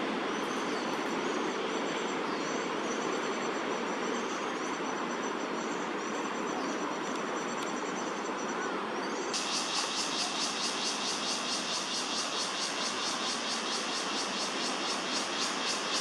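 Steady low rumble of city traffic throughout, with faint high chirps repeating over the first half. A little past halfway a loud, high, rapidly pulsing insect buzz starts abruptly and keeps going.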